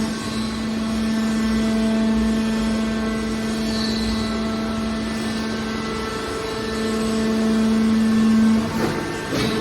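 Metal scrap baler's hydraulic power unit running with a steady, pitched hum that grows louder for a couple of seconds, followed near the end by a brief metallic clatter.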